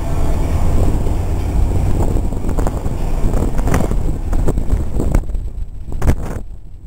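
Wind buffeting the microphone on a ferry's open deck: a loud, uneven low rumble with gusts, easing off near the end.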